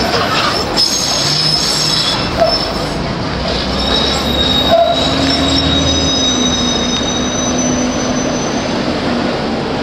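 Manchester Metrolink T-68 tram's steel wheels squealing on curved street track. Several high, steady squealing tones come and go over seconds, over the constant rumble of the tram rolling.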